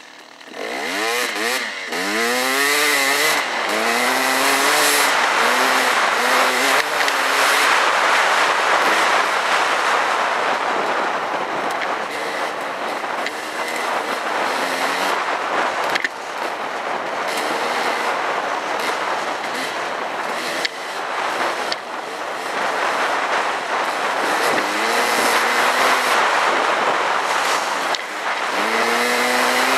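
Dirt bike engine revving up and shifting through the gears, its pitch climbing and dropping several times in the first few seconds and again near the end. Through the middle a steady rush of wind on the helmet-mounted microphone drowns out most of the engine.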